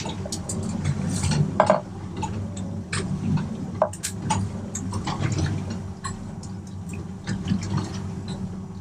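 Scattered light clicks, taps and knocks aboard a small fishing boat over a steady low hum, with some watery sounds.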